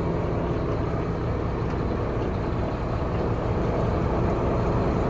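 The 2007 Mack dump truck's diesel engine idling steadily, a constant low drone.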